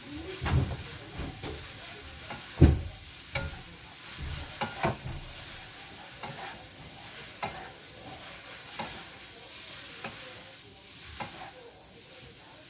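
Food sizzling and frying in a pan while it is stirred, with sharp clanks of the cooking utensil against the pan every second or two, the loudest about two and a half seconds in.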